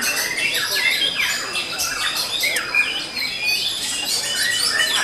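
Many caged white-rumped shamas (murai batu) singing over one another: a dense, unbroken mix of quick whistles, trills and chirps.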